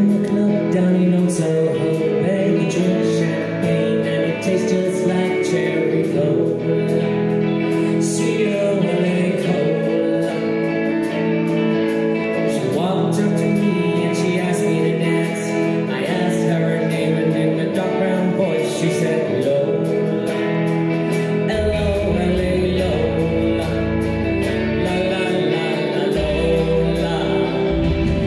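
Live rock band playing: electric guitars and a drum kit with cymbals, with a woman singing lead. A deep bass line comes in about three-quarters of the way through.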